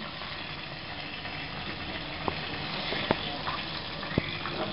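Hot oil sizzling as crispy thread chicken wrapped in samosa pastry is lifted out of a small frying pan. Three light clicks of the metal slotted spoon and spatula against the pan come through over the sizzle.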